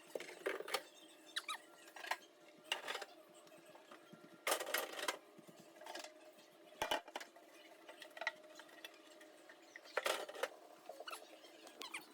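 Faint squeaks, knocks and light clatter of a refrigerator being cleaned by hand: a cloth squeaking as it rubs the fridge's plastic surfaces, with short knocks as parts are handled and a longer scrubbing stretch about four and a half seconds in.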